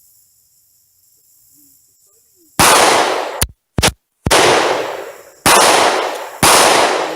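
Rapid gunfire at an outdoor range: four loud shots about a second apart, starting about two and a half seconds in, each ringing out briefly and distorting the recording.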